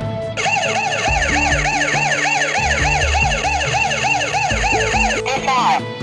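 Burglar alarm siren from the alarm control panel, sounding after a door magnetic sensor is triggered: a fast warble, about three to four rise-and-fall whoops a second. It stops about five seconds in and is followed by a short falling sweep, with background music underneath.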